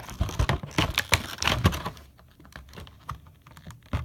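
Plastic and cardboard action-figure packaging being handled and pulled open: a rapid run of sharp clicks and crinkles, dense for about two seconds, then thinning to occasional clicks.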